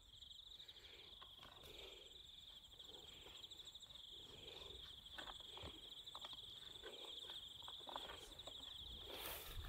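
Faint, steady high-pitched insect trilling, pulsing finely, over soft rustling and scattered scratchy clicks from a cow rubbing its head against a plastic bristle scratcher brush strapped to a post. A brief burst of noise comes near the end.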